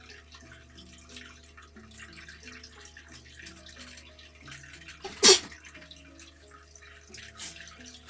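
One sharp human sneeze about five seconds in, deliberately provoked as part of a sneeze challenge.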